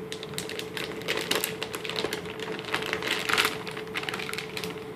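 Plastic wrapping crinkling and rustling as a graphics card and its parts are handled and lifted out of a foam-lined box: an irregular run of small crackles and clicks, loudest about three seconds in.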